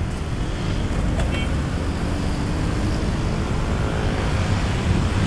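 Steady rumble of dense, slow-moving city road traffic, with car and truck engines running close by. A brief high-pitched tone sounds about a second in.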